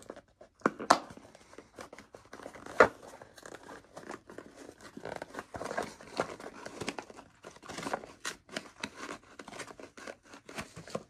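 Packaging of a box of football cards being torn open and crinkled, a busy run of rustling and small crackles, with sharp snaps about a second in and, loudest, near three seconds in.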